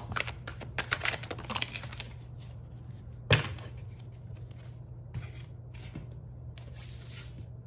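Oracle cards shuffled by hand: a quick run of light card clicks for about two seconds, then a single sharp knock about three seconds in as cards are set down on the wooden table. A faint brief slide follows near the end, over a steady low hum.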